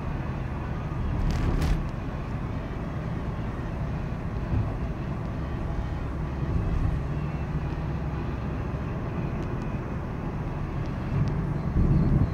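Car driving, heard from inside the cabin: a steady low rumble of engine and tyres on the road. A couple of sharp clicks come about a second and a half in, and the rumble swells louder near the end.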